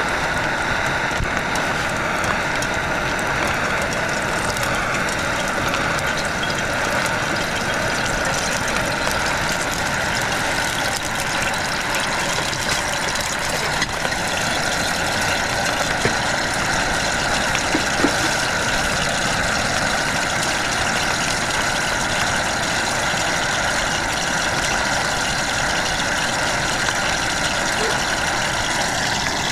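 Steady heavy rain, an unbroken loud hiss, with a few faint ticks about halfway through.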